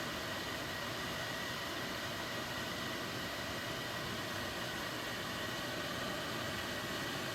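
Microwave oven running with a steady whirring hum and a faint constant high tone, heating a marshmallow Peep.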